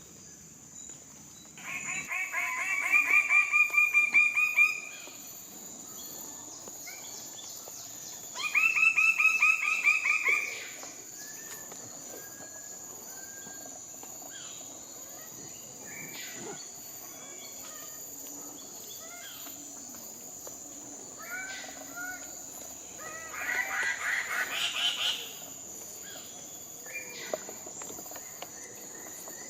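A bird calling in three long series of rapid, repeated notes, the first rising in loudness, over a steady high-pitched drone of insects and some softer scattered bird calls.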